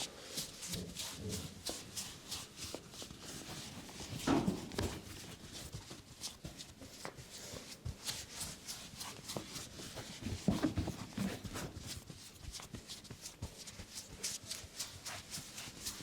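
Hands working over a head close to the microphone: dense, quick, crisp rustling and tapping of fingers on hair and scalp, with two louder, deeper sounds about four and ten seconds in.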